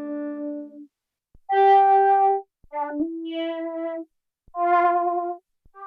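Arturia MicroFreak synthesizer playing a few short held notes with short silences between them, some with a slight pitch wobble.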